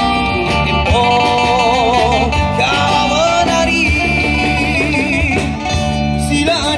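Live band music from electric guitar, bass and drums, with a melody of long, wavering notes over a steady beat.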